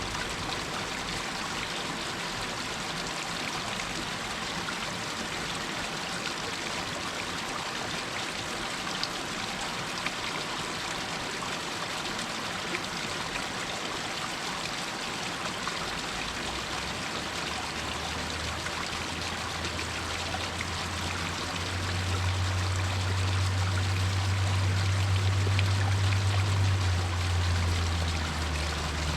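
Water running and trickling down a rocky hillside stream, a steady rush. From about halfway a low droning hum joins it, loudest for a few seconds near the end.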